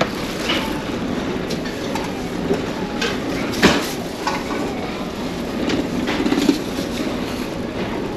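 Steady low rumble of a large car ferry underway, heard inside its buffet restaurant, with a few sharp clinks of dishes and utensils, the loudest about three and a half seconds in.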